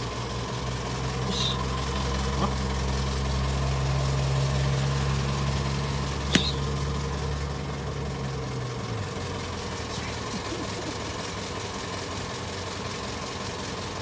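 A motor vehicle engine idling with a steady low hum that cuts out about nine seconds in. There is one sharp click about six seconds in.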